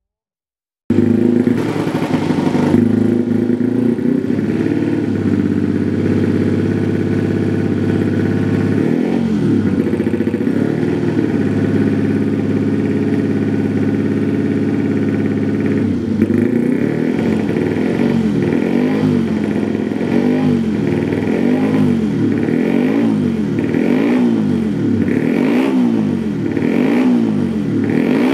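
Yamaha MX King 150 race bike's single-cylinder four-stroke engine running steadily at a fast idle while being warmed up. In the second half it is blipped on the throttle about once a second, each rev rising and falling in pitch.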